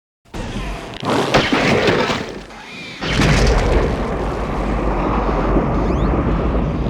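Monster-film destruction effects: crashing, breaking impacts begin abruptly after a moment of silence, then about three seconds in a heavy, steady low rumble takes over, like an explosion or collapse.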